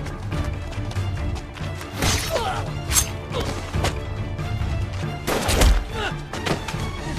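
Film score music overlaid with a run of sharp impacts and crashes from a battle scene, the heaviest crash about five and a half seconds in.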